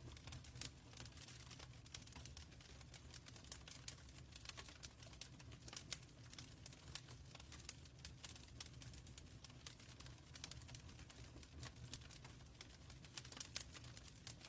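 Wood fire in a fireplace crackling faintly: a constant irregular scatter of small sharp pops and snaps over a low, steady rumble.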